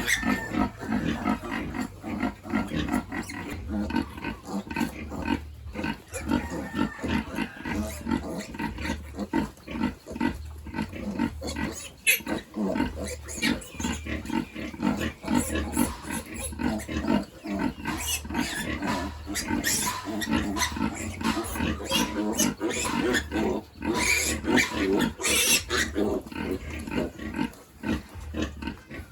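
Pigs grunting in a dense run of quick grunts, with sharper high squeals breaking in now and then, mostly in the second half: a sow with her nursing piglets.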